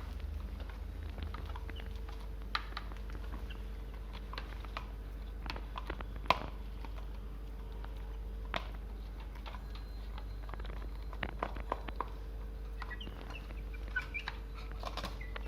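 Young chickens pecking at their feed: scattered, irregular taps and clicks, over a steady low hum.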